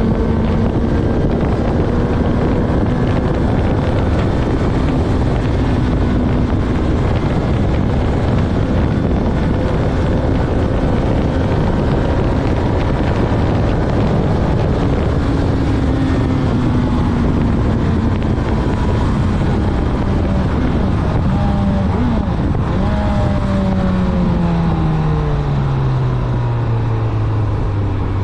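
Honda CB1000R's inline-four engine running under heavy wind rush while riding. The engine note holds steady, then falls as the bike slows, jumps up once about three quarters through, and falls again to a low note near the end.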